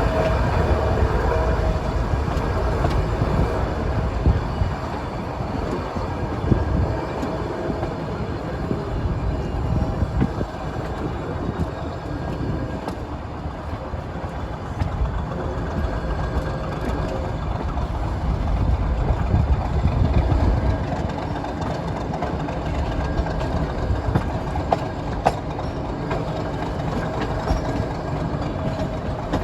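Nilgiri Mountain Railway toy train running along the track, a steady low rumble of wheels and coach with scattered sharp clicks.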